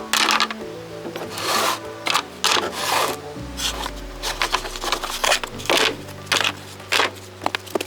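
Irregular rough rubbing strokes, a dozen or so short scrapes, over background music with low sustained notes.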